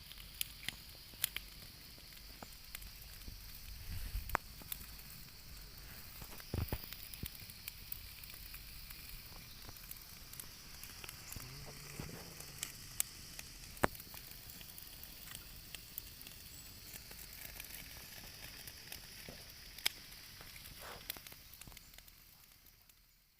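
Chicken cooking over a fire: a steady sizzling hiss with scattered sharp pops and crackles throughout, fading out at the very end.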